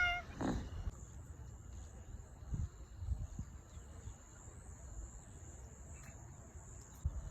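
Steady, high-pitched insect chirring over a low rumble, with a few soft thumps.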